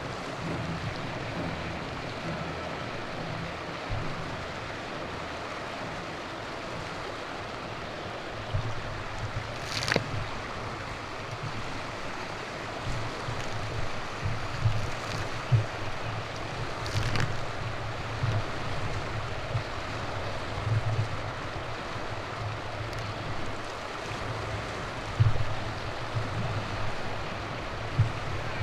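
Rough lake waves washing and breaking over a rocky shore around a beached canoe, with strong gusty wind buffeting the microphone. Two sharp knocks come about ten seconds in and again about seven seconds later.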